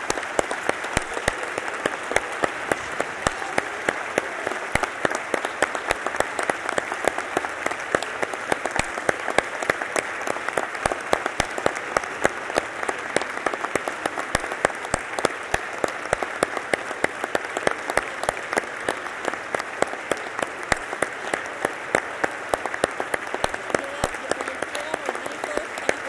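Sustained applause from a large crowd of legislators: dense, even clapping with many sharp individual claps standing out.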